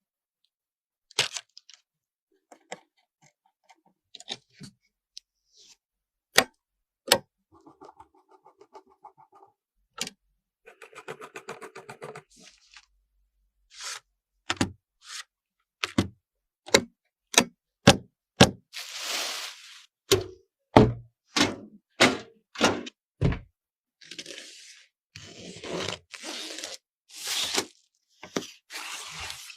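Hands handling computer hardware: a string of sharp clicks, knocks and thunks, with a fast rattling stretch and several longer bouts of rustling and scraping.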